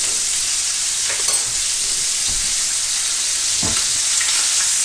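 Cod and red pepper kebab sizzling in hot butter in a ridged griddle pan on full heat: a steady frying hiss.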